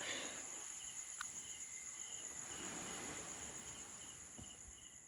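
Crickets trilling steadily at night, with another insect chirping in short, evenly spaced pulses, two or three a second.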